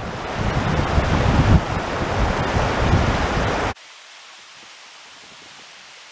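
Wind buffeting the microphone over the rush of a fast, shallow river running over stones; a little past halfway it cuts off sharply, leaving a much quieter, steady rush of river water.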